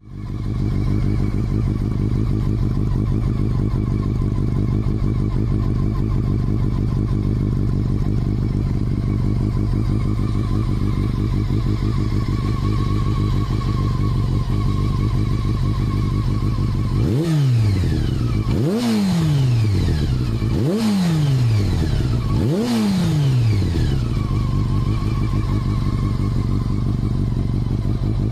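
Honda CBR400RR (NC23) inline-four engine idling through an OVER Racing slip-on silencer, then revved four times in quick succession about two-thirds of the way through, each rev rising sharply and falling back, before settling to idle again.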